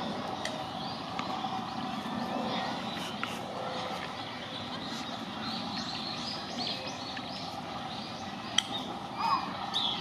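Japanese white-eyes giving many short, thin, high chirps among the cherry branches, over a steady background hum. A single sharp click comes near the end, followed by a few louder, falling calls.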